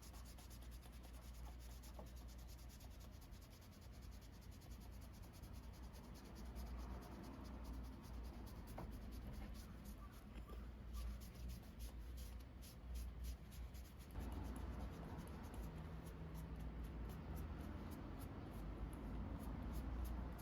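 Faint, light scratching and rubbing made up of many quick small strokes, a little louder in the last third.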